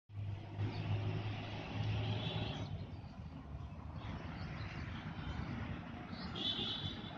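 Outdoor ambience of distant road traffic, with a low engine hum during the first couple of seconds.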